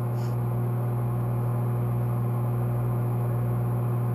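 Microwave oven running with a steady low hum while it heats a bar of Ivory soap.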